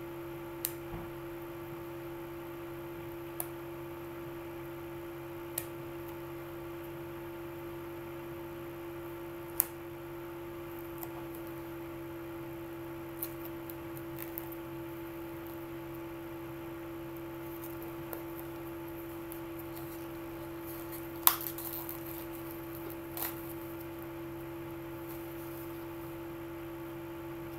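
Hands opening and handling a CD box set, giving scattered small clicks and taps, the sharpest about two-thirds through, over a steady electrical hum.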